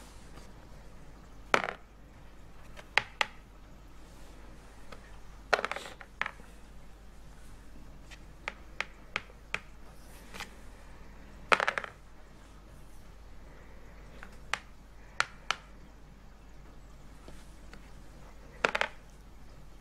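Clicks and short rattles of a ludo-style board game being played: plastic playing pieces tapped down on the cardboard board and dice rolled on the table. About a dozen separate sounds, with longer rattles about a quarter of the way in, in the middle and near the end.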